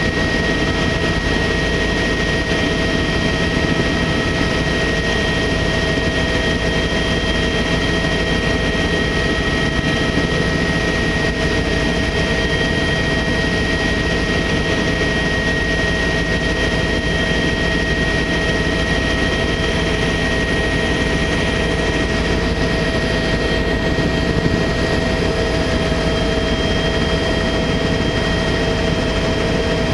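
Helicopter turbine and rotor running steadily, heard from inside the cabin in flight: a constant high whine over a dense, even rumble.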